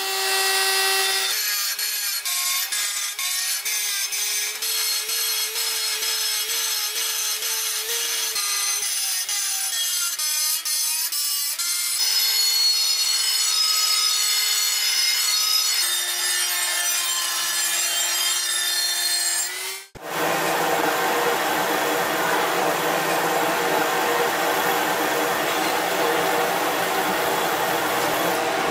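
Electric straight die grinder running at high speed with a grinding stone on a bearing-steel machete blade. Its whine wavers and dips in pitch as it is pressed into the work. About twenty seconds in it cuts off abruptly and gives way to a drill press drilling through the steel blade, a steadier, noisier running sound.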